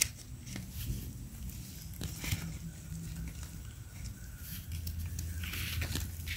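Scattered crackles and rustles of dry forest leaf litter and twigs under footsteps and hands, over a low steady hum.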